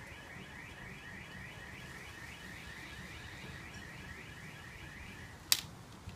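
Faint, rapid series of high chirps repeating evenly several times a second, stopping shortly before one sharp click near the end.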